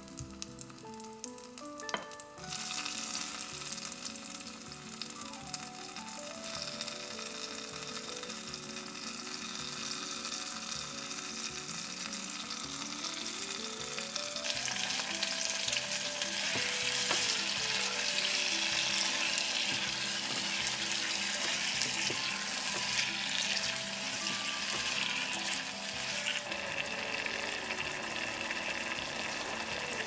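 Food sizzling and frying in a hot earthenware pot, stirred with a wooden utensil. The sizzling starts abruptly about two seconds in and grows louder around the middle, with soft background music underneath.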